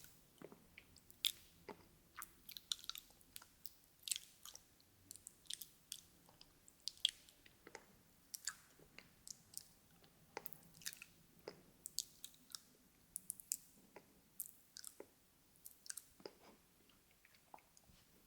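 Mouth sounds made up close: a quick, irregular run of clicks and smacks like chewing. They stop just before the end.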